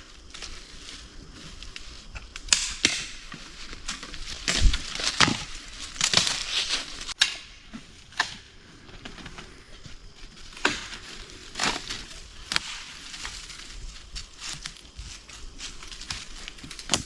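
Dry twigs and leaf litter crunching and snapping in irregular cracks, as dry firewood is gathered and broken by hand.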